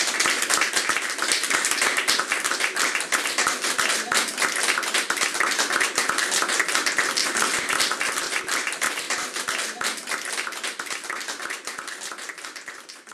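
Audience applauding, a dense patter of many hands clapping that holds steady and then dies away near the end.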